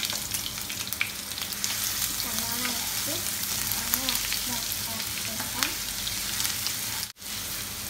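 Garlic paste, curry leaves and fenugreek seeds sizzling and crackling in hot coconut oil in a nonstick pan, with a spatula stirring them. The sound drops out for an instant near the end.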